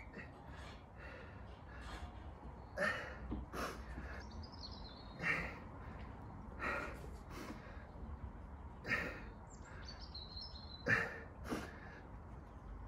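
A man breathing hard through a floor exercise, short forced exhales about every one to two seconds. A bird chirps briefly twice over a low steady outdoor rumble.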